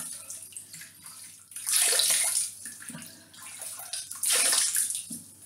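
Warm water splashed onto the face from cupped hands over a sink, rinsing off facial cleanser: two bursts of splashing, the first about two seconds in and the second near the end, with quieter trickling between.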